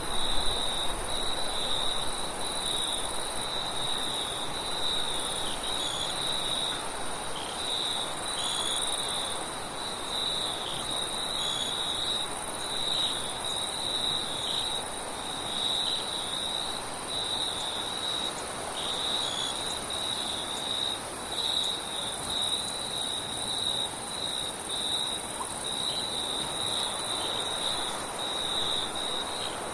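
Crickets chirping in a steady, finely pulsing high trill that runs on without a break, with a fainter, higher-pitched insect band above it. Underneath lies a soft, even wind hiss, a little louder with a low rumble in the first second or so.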